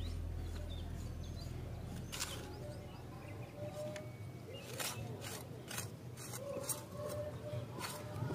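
Background music fades out, then a small metal spoon and a hand trowel scrape and dig into dry, crumbly soil: a string of short, irregular scrapes and crunches.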